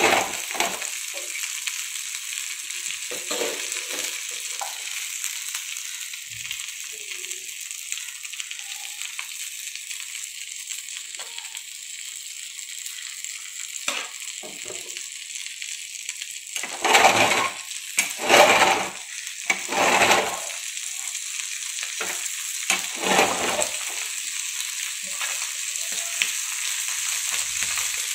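Small rava-coated fish sizzling in oil on a flat pan, a steady high hiss. A metal spatula scrapes and turns them a few times in the second half.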